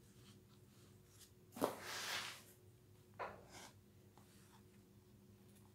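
Quiet handling noise of a small circuit board and its wires: a knock and a short rustle about a second and a half in as the board is set down, then a single click about three seconds in. A faint steady hum runs underneath.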